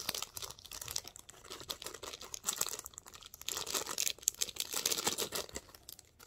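Thin clear plastic packaging bag crinkling and crackling as it is handled in the hands, with a watch inside it, in a rapid, irregular run of crackles that stops suddenly.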